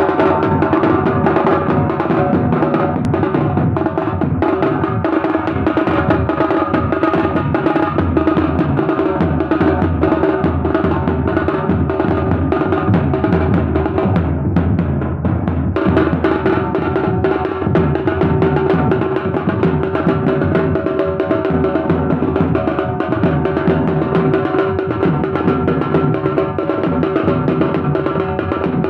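Procession drums beaten with sticks in a fast, driving rhythm, over a steady held tone.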